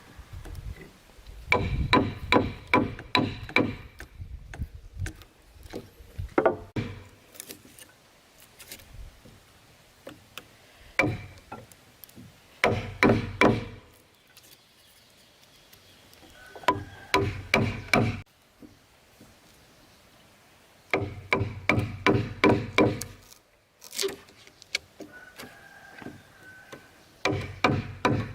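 Rapid runs of ringing blows as holes are chiselled into timber, about four strikes a second, in about six bursts with short pauses between.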